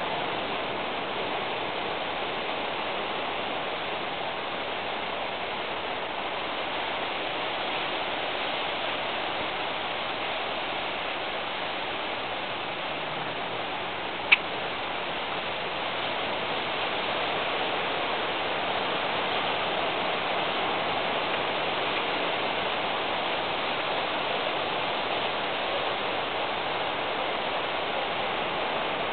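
Steady, even hiss of background noise, with a single sharp click about halfway through.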